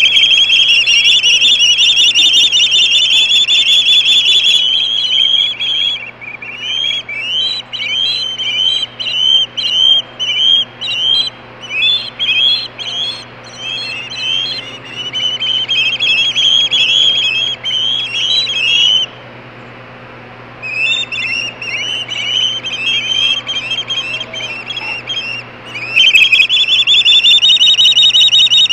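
Juvenile ospreys screaming on the nest: rapid, high whistled calls, loud and continuous at first, then breaking into shorter runs of chirps with a brief pause about two-thirds of the way through, and loud and continuous again near the end.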